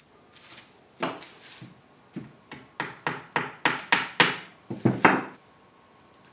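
Claw hammer tapping push pins into a picture frame's edge to fasten a stretched fabric print. About a dozen sharp taps, roughly three a second, growing louder, stopping just after five seconds.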